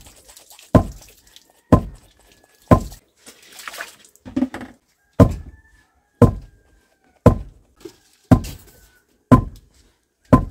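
Long wooden pestle pounding soaked rice into flour in a stone mortar: heavy, regular thuds about once a second, with a short break after the third stroke.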